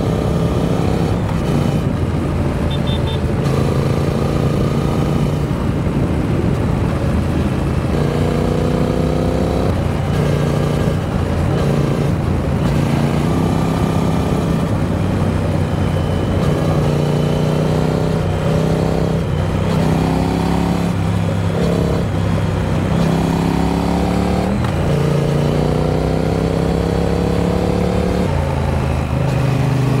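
Triumph Speed Twin 900's parallel-twin engine running on the move, its pitch climbing several times as the bike accelerates and dropping back between climbs, with the largest drop about two-thirds of the way in.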